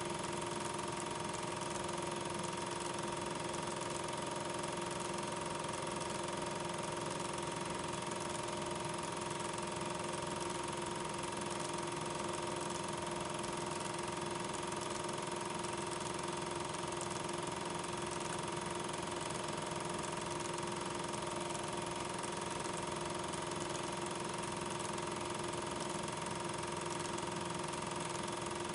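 8 mm film projector running steadily: a constant mechanical whirr and hum with an even hiss, not the sound of the streetcars on screen.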